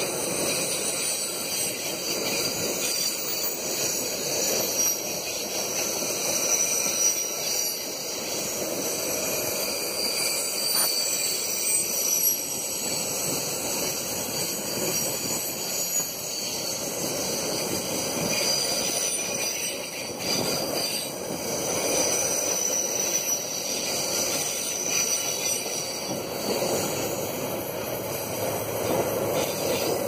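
Freight train's steel ore wagons rolling past close by: a steady rumble of wheels on the rails, with high, wavering steel-on-steel squeals that rise and fade as the wagons go by on the curve.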